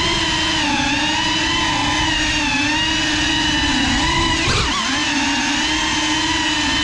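GEPRC Cinelog 35 cinewhoop's brushless motors and ducted propellers whining steadily, the pitch wavering up and down with the throttle, with a brief sharp jump in pitch about four and a half seconds in.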